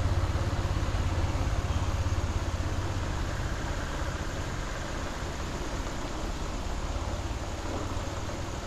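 A vehicle engine running steadily with a fast, even pulse, over a steady rushing noise.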